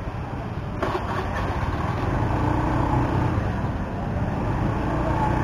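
Motorcycle engine running steadily as it rolls slowly along, with a low rumble that gets a little louder about two seconds in.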